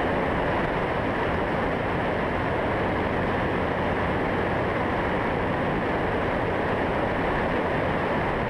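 Steady rush of wind and engine noise on board an AutoGyro Eagle gyroplane in flight, with wind buffeting the onboard microphone.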